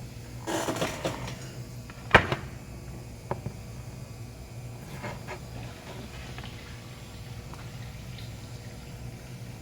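Handling noises: a brief rustle, then a sharp knock about two seconds in and a few lighter clicks, over a steady low hum.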